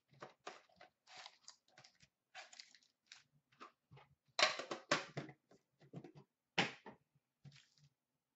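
Foil-wrapped hockey card packs and their cardboard Upper Deck box being handled as the packs are pulled out: irregular crinkling and rustling, with a louder flurry about halfway through.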